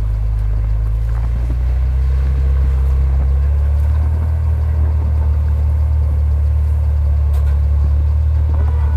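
Off-road vehicle engine running with a steady low drone, the pitch holding even throughout.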